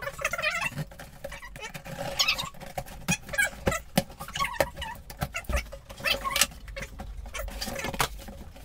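Cardboard box and packaging being handled and opened: irregular rustling and crinkling with scattered sharp clicks and knocks.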